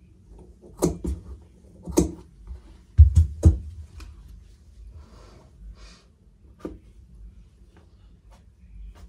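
Tailor's shears cutting cotton fabric on a worktable: a few sharp clicks of the blades, then two loud knocks on the table about three seconds in, followed by soft rustling of cloth being gathered and smoothed.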